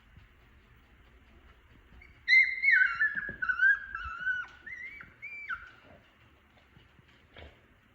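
Twenty-day-old puppies whining and squealing: a run of high, wavering cries starting a couple of seconds in and lasting about three seconds.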